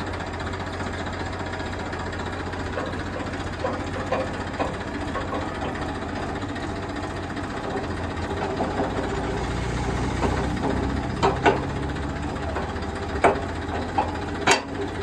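Massey Ferguson 7250 DI tractor's three-cylinder diesel engine idling steadily. Over the last few seconds come several sharp metal clanks as the rotavator is coupled to the tractor's three-point hitch.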